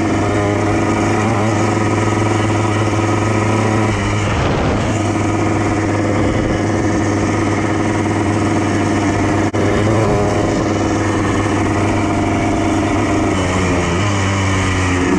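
Yamaha Blaster's two-stroke single-cylinder engine running at steady revs, with a short dip about four seconds in, a brief break about nine and a half seconds in, and the pitch shifting near the end.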